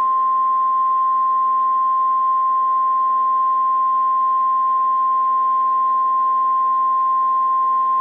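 Emergency alert attention tone: one steady, loud tone near 1 kHz, the single 1050 Hz warning alarm tone of a NOAA Weather Radio alert, over a low electrical hum. It signals that a severe thunderstorm warning message is about to be read.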